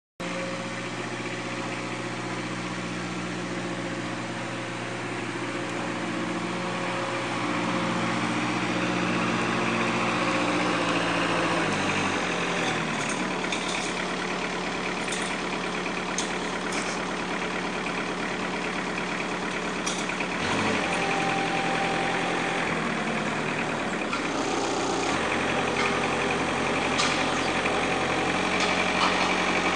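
Kramer compact wheel loader's diesel engine running as it drives and raises its loader arm with a loaded pallet box, its pitch shifting several times as the engine speed changes. A few short sharp clicks or knocks come in the middle stretch.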